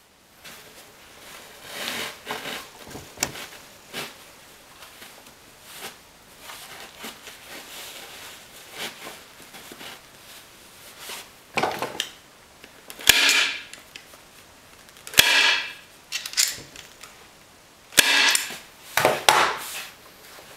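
Manual heavy-duty staple gun firing staples through upholstery fabric into a wooden seat base: several sharp snaps a few seconds apart, the loudest in the second half, with the rustle of the fabric being pulled tight between shots.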